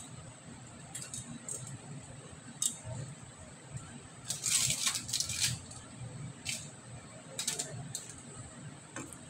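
Metal tongs moving potato and carrot chunks and onion pieces about on a foil-lined baking tray: short scattered rustles and clicks of foil and tongs, the longest and loudest cluster about halfway through.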